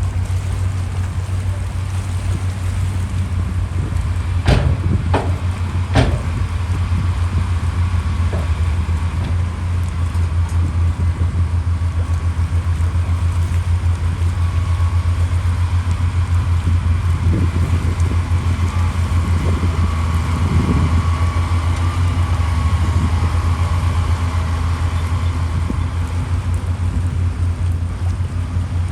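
A heavy diesel engine of earthmoving machinery running steadily, with a loud, pulsing low drone. Three sharp knocks come about four to six seconds in.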